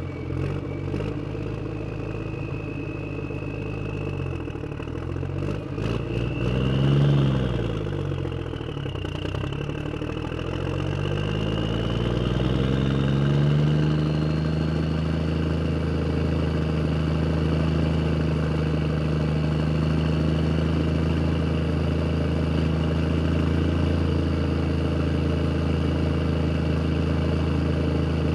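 A motor vehicle engine running. It revs up once and drops back about seven seconds in, then settles into a steady, somewhat louder run.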